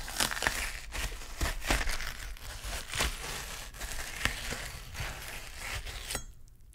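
Foley for a knife twisting into a human head, made by twisting a knife into a watermelon: a dense run of wet crunching and crackling that stops suddenly near the end.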